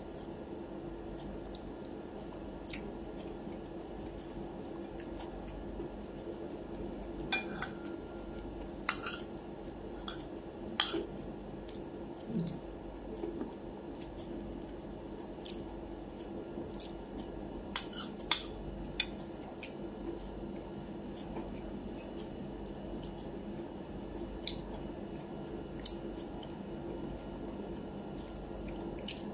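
Metal cutlery clinking and scraping against a plate in scattered sharp clicks, the loudest clusters about a quarter of the way in and just past halfway, with quiet chewing. A steady low hum runs underneath.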